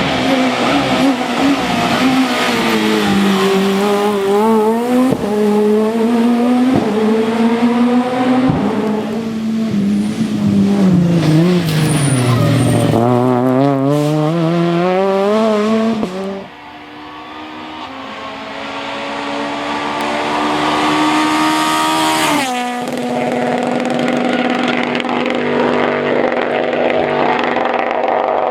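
Rally car engines at full throttle, the revs rising and falling with gear changes and lifts. About 16 seconds in, the sound cuts to another car whose engine note climbs, then holds a steady tone.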